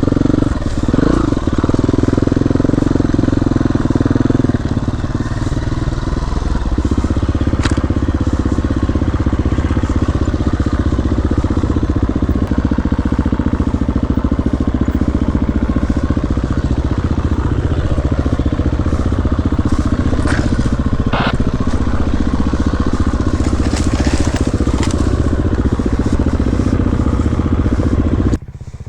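Dirt bike engine running steadily while being ridden, with a few short knocks and clatters over it. The sound cuts off abruptly near the end.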